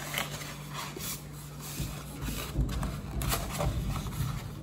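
Sheet of stiff construction paper being rolled by hand into a tube, rustling and crinkling, with low handling bumps from about two seconds in.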